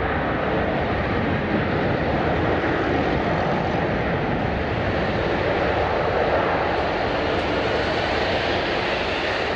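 Jet airliner's engines running, a steady, even rush of noise.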